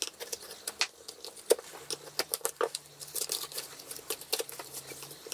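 Small metal eyeshadow pans and a knife clicking and tapping against a cardboard palette as the pans are pried out and moved about, in many quick, irregular light taps.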